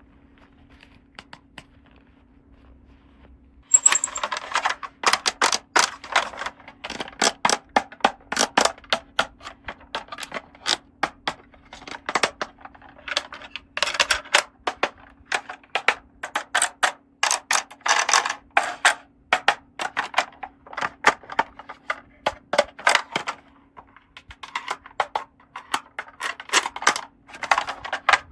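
Small plastic toy pieces being handled and set down: dense, irregular clicks and clatters starting about four seconds in, over a faint steady hum.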